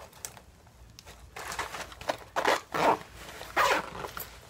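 A zipper being pulled in a few short rasps, with rustling as things are handled.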